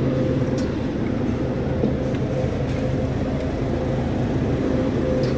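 Refrigerated glass-door display cooler's compressor and fans running: a steady low hum with a thin higher tone over it, and a few faint light ticks as bottles are handled on the wire shelf.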